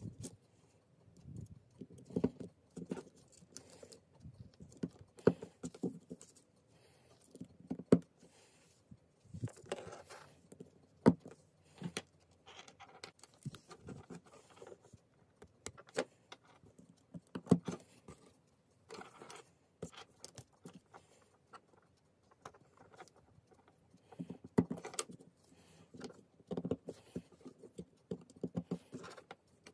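Jumper wires being handled and their plastic pin connectors pushed into a solderless breadboard: irregular light clicks, taps and rustling.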